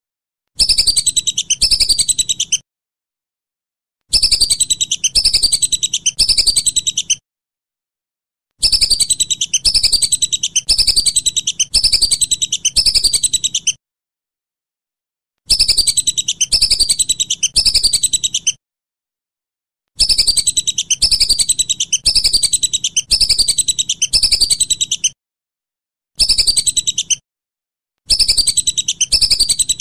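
Whistling duck (belibis) calling: runs of several high, falling whistles in quick succession, broken by silent gaps of one to two seconds. The runs start and stop abruptly, as in an edited loop of calls.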